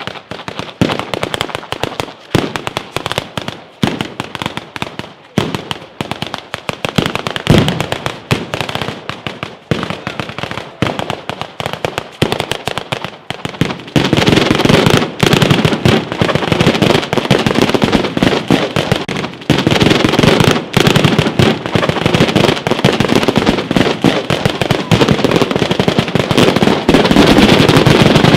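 Batteria alla bolognese: long chains of firecrackers hung on wires between poles going off in rapid succession, a dense barrage of cracks and bangs. About halfway through it turns louder and almost continuous.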